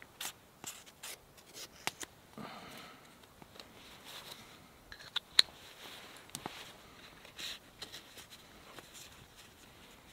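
Paper and a small cardboard box being handled: light rustling and scraping, with scattered sharp clicks, the loudest about halfway through.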